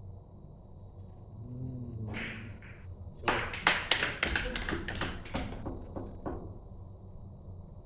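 Carom billiard balls clicking: a quick run of about a dozen sharp hard clicks over some three seconds, loudest near the start of the run.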